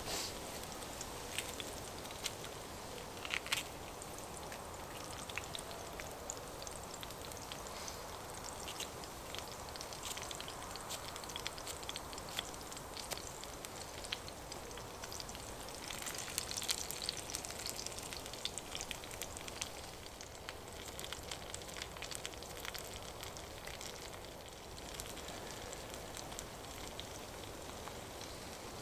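A Swedish torch, an upright split log burning from the inside, crackling steadily with many small pops and a sharper pop about three seconds in. A cast-iron pan of burger and onions sits on top and adds a frying sizzle.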